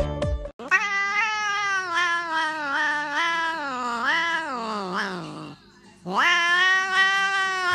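Tabby cat yowling: one long, drawn-out wavering call that sinks in pitch at the end, then after a short pause a second yowl swells in.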